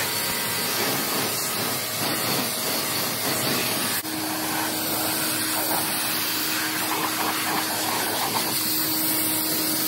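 Water jet from a hand-held trigger spray nozzle hissing steadily as it rinses a car's painted body panels and rear spoiler.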